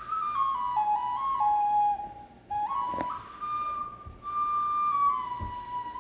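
A clay wind instrument played freely, a single clear line of notes stepping up and down, with short breaks for breath. This is the improvised stage of a playing session.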